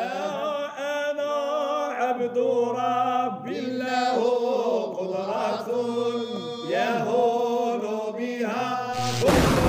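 Voices chanting a slow, drawn-out Arabic devotional song in praise of the Prophet Muhammad (madih), with a brief noisy swell near the end.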